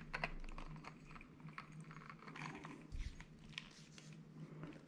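Faint clicks and small knocks of hard plastic as the search coil of a Quest Scuba Tector Pro underwater metal detector is twisted off its shaft and handled, with one soft thump about three seconds in.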